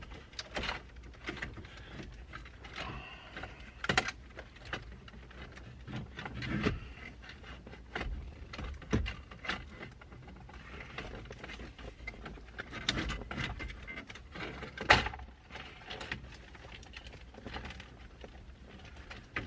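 Scattered clicks, taps and rattles of hand tools and loose parts being worked on a truck's dash, with sharp knocks about 4 seconds in and about 15 seconds in.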